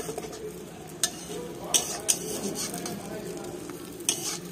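Egg omelette with a slice of bread on it sizzling in oil in a steel kadai, while a flat steel spatula scrapes and clicks against the pan three times: about a second in, near two seconds and around four seconds.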